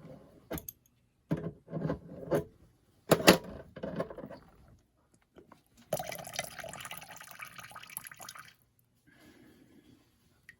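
Several knocks and clicks from handling the disassembled kitchen faucet's parts, the loudest about three seconds in, then about two and a half seconds of splashing water starting about six seconds in.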